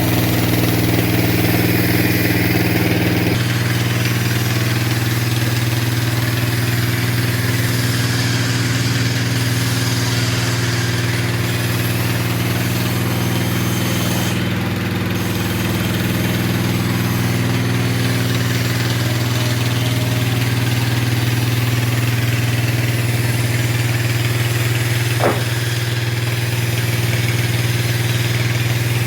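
Sawmill machinery running with a steady, engine-like hum while ripping camphor wood. The tone shifts about three seconds in, and there is a single sharp click near the end.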